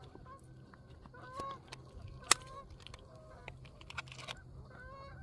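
Birds calling in short, repeated notes across the water, with one sharp click about two seconds in and a few softer knocks near the end.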